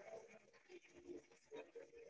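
Near silence: quiet room tone with faint, indistinct sounds.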